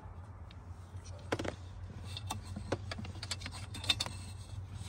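Wiring harness and plastic dash trim being handled: scattered small clicks, taps and rustles, busiest in the second half, over a steady low hum.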